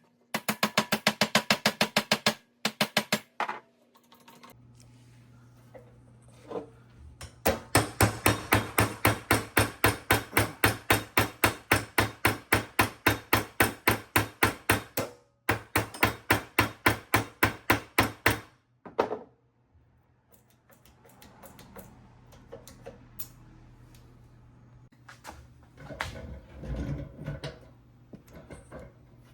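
A hammer tapping in quick, even strokes, about four a second, in runs of several seconds broken by short pauses, then a few softer handling knocks near the end.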